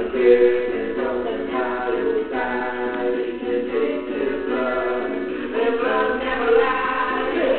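Background music: a song with singing voices over instruments.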